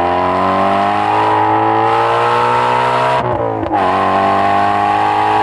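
Car engine accelerating hard, its pitch climbing steadily, with an upshift about three seconds in where the note drops briefly before climbing again.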